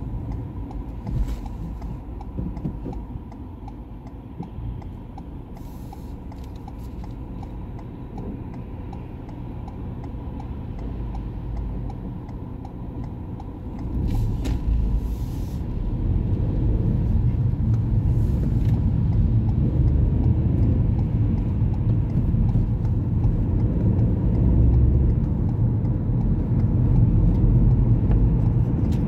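Car engine and tyre noise heard from inside the cabin, a low steady rumble while rounding a roundabout, growing louder about halfway through as the car pulls away and speeds up along a straight road.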